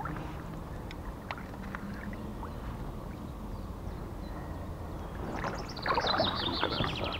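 Splashing and sloshing of river water around a small boat as the net is worked against the current, with scattered light knocks. Near the end the water gets busier and a bird sings a rapid trill.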